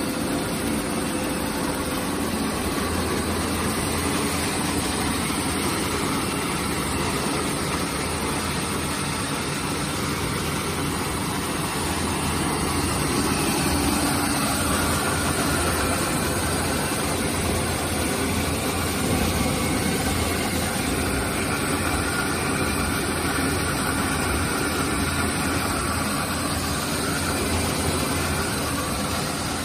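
High-output 600 kg/h rice milling machine running steadily: a constant mechanical hum under a dense hiss.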